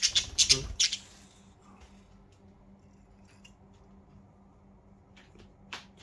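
Budgerigars giving a quick run of harsh, high squawks in the first second. Then only a few faint chirps, and one more short call just before the end.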